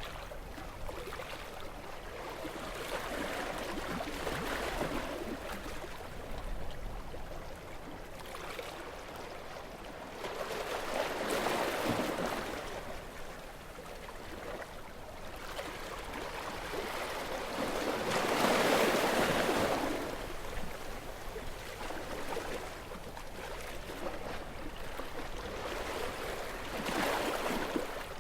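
Gentle sea waves washing ashore, a steady wash that swells and falls back in slow surges every several seconds, with the biggest near the middle and end.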